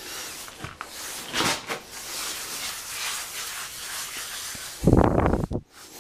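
Sponge float rubbing over a fresh cement finish coat, a continuous gritty scraping as it knocks down the rough high spots to smooth the wall. A louder, dull burst of noise comes about five seconds in.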